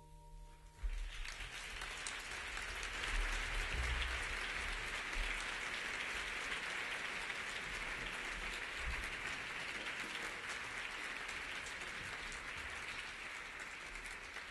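The trio's final held chord rings briefly, then a large audience breaks into applause about a second in, steady clapping that keeps going.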